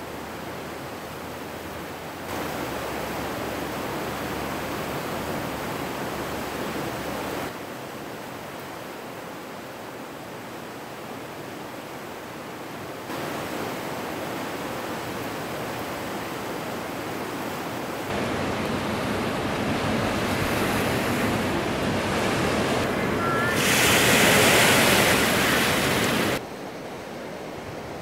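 A river in flood rushing past: a steady roar of fast water with wind noise on the microphone. The sound jumps in level several times and is loudest and hissiest for a few seconds near the end.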